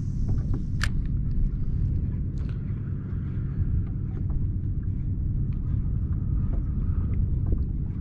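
Steady low rumble of wind buffeting the microphone on open water, with a sharp click about a second in and a few faint ticks.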